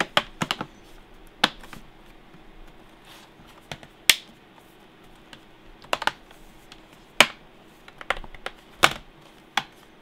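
Plastic bottom cover of a Toshiba Satellite P55-A5200 laptop being pressed back onto the chassis, its snap clips clicking into place: about a dozen sharp clicks at uneven intervals, some in quick runs of two or three.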